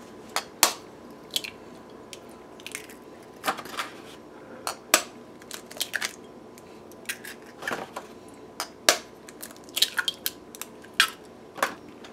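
Eggs being cracked one after another and broken open over a glass mixing bowl: an irregular string of sharp taps and crunches of eggshell.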